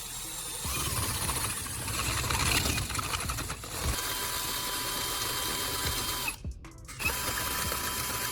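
Power drill spinning a homemade wedge cutting blade into a plastic pipe, the motor running at a steady whine. The sound breaks off briefly about two-thirds of the way through, then resumes.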